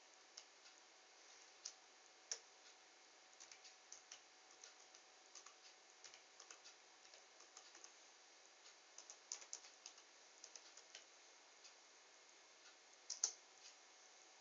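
Near silence: faint room tone with scattered small, irregular clicks, the loudest a double click near the end.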